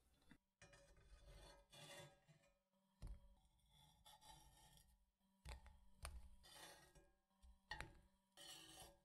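Faint scrapes and light taps of a metal slotted spatula sliding under mini pancakes on a nonstick frying pan and flipping them over, several times in a row.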